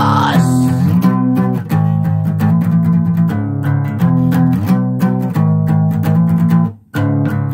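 Instrumental passage of a rock song with no vocals: guitar picking a repeated pattern over bass. The music cuts out for a moment near the end, then comes straight back in.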